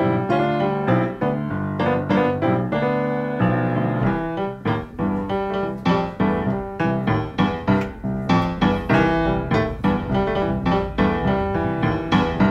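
Blues piano playing, with quick, evenly repeated chord strikes in the second half.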